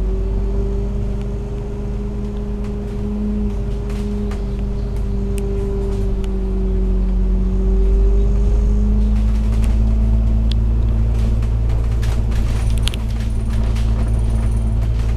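Alexander Dennis Enviro500 MMC double-decker bus heard from inside the upper deck while driving: a steady engine and driveline drone over a low rumble, with light rattles of interior fittings that come more often in the second half.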